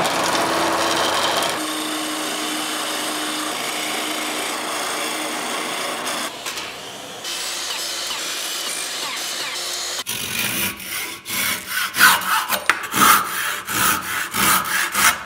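A wood lathe spinning a pine 2x2 while a turning tool cuts it round, a steady scraping hiss with a faint hum. Partway through a miter saw runs briefly. From about ten seconds in, a handsaw cuts a turned wooden bench dog flush in quick, uneven back-and-forth strokes.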